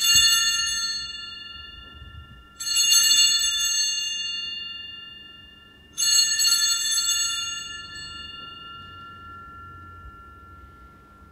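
Altar bell rung three times at the elevation of the chalice during the consecration, the sign to the congregation that the chalice is being raised. Each strike rings on in high, clear tones and fades slowly over a few seconds.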